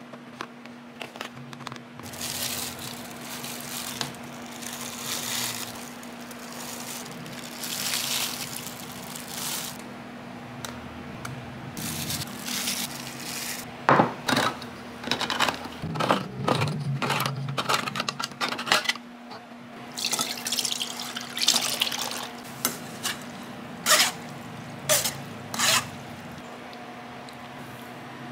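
Kitchen prep sounds: a metal spoon scraping and spreading custard in a plastic container, then a run of sharp clicks and knocks as a tin can is handled on a wooden table, and wet spooning sounds of syrupy fruit cocktail.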